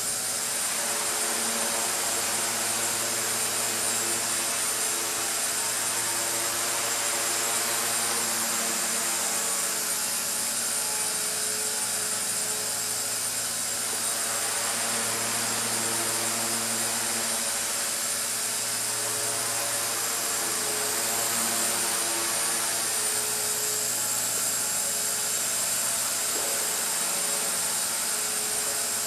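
Walkera 4G6S micro RC helicopter in flight: continuous electric motor whine and rotor hum, swelling and easing as it manoeuvres.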